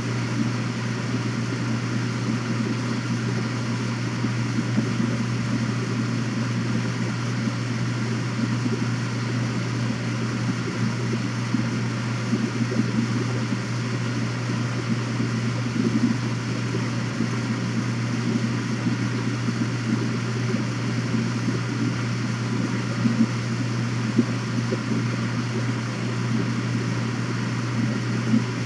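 A steady low mechanical hum with a fluttering rumble beneath it, unchanging throughout.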